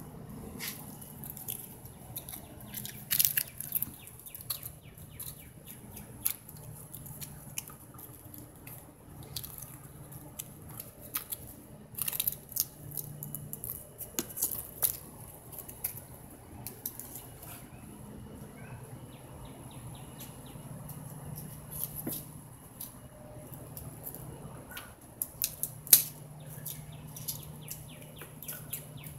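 Irregular light clicks and scrapes as a kitten bats and paws a dry leaf on concrete.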